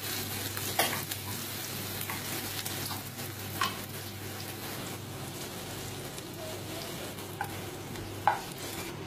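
Sliced onions sizzling in oil in a frying pan as they are stirred and scraped with a wooden spatula. A few sharp taps of the spatula against the pan stand out, the loudest near the end.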